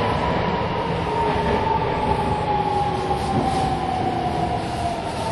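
Nagoya Municipal Subway 6050 series train running over rumbling wheels, its motor whine falling slowly in pitch as the train slows.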